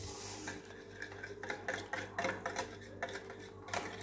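Small electric hand mixer running steadily in cake batter, with light clicks and taps of the beaters and utensils against the bowl.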